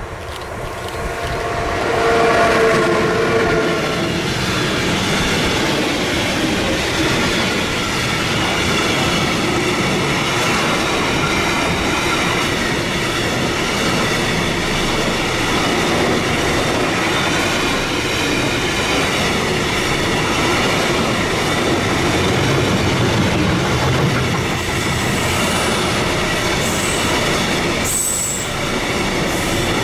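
Container freight train hauled by an electric locomotive passing close by. It swells over the first two seconds as the locomotive goes by with a couple of steady tones, then the wagons roll past with a steady rumble and clatter of wheels on the rails. A few short, high wheel squeals come near the end.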